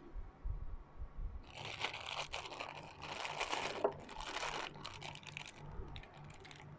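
Soft low thumps, then a thin plastic bag crinkling in several bursts as pickled papaya is squeezed out of it.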